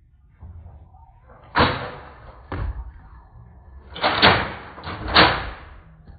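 Nerf blaster shots: four sharp, slam-like hits, each with a short decay, roughly a second apart.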